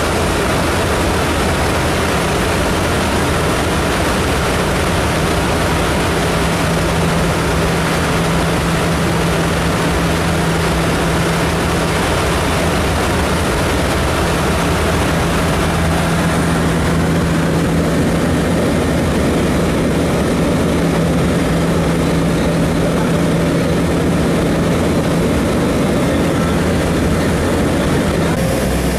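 Propeller airplane's engines and propellers droning steadily, heard from inside the cabin, with a steady low hum; the hiss grows softer about halfway through as the plane comes in to land.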